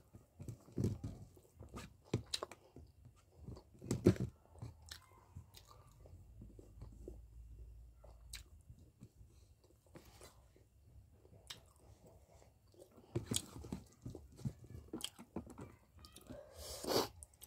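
A person eating fish tomato curry by hand, close to the microphone: irregular wet chewing and lip smacks with occasional crunches, busier in the opening seconds and again near the end.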